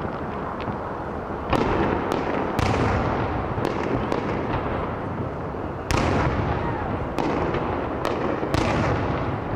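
Fireworks display: a string of sharp bangs from shells and rockets, the loudest about a second and a half, two and a half, six and eight and a half seconds in, over continuous noise from the display.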